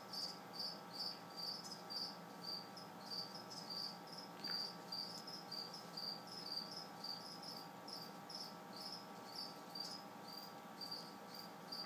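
A cricket chirping steadily, short high chirps repeating at an even pace of about five every two seconds, over a faint steady hum.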